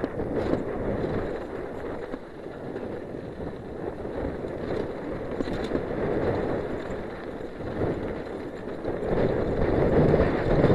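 Wind buffeting the camera microphone over the noise of a Giant Glory downhill mountain bike's tyres rolling fast over loose dirt and rock, with scattered short clatters from the bike over bumps. It gets louder near the end.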